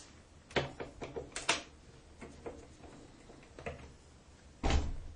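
Scattered small clicks and taps of a screwdriver being picked up and turned on the screws of a plastic wall-switch faceplate, with a louder thump near the end.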